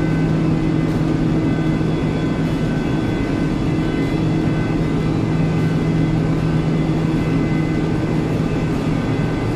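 Steady drone of heavy offshore machinery: a low hum with a few thin, high steady whines over it.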